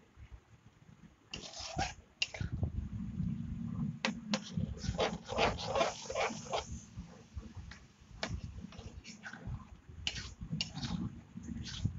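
Metal spatula scraping and knocking against a steel kadai as thick egg-and-dal tadka gravy is stirred and bubbles. The strokes come irregularly and are busiest in the middle.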